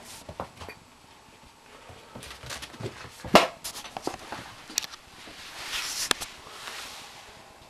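Scattered light thumps, taps and fabric rustling from a kitten at play on a carpeted floor and a handheld camera being moved. One sharp knock comes a little past three seconds in, and a longer rustle near six seconds.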